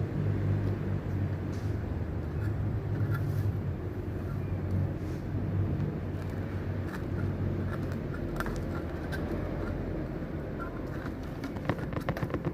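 A steady low mechanical hum, with scattered light clicks and taps, a cluster of them near the end.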